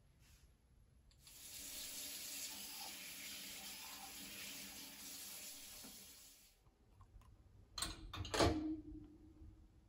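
Tap water running steadily for about five seconds and then stopping. Near the end comes a loud clatter as the parts of a Bialetti moka pot are set into a dishwasher rack, with a brief metallic ring.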